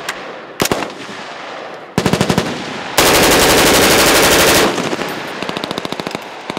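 Full-auto AR-10 rifle in .308 firing bursts at about thirteen rounds a second. The loudest is one long burst of about a second and a half in the middle, with shorter and fainter bursts around it.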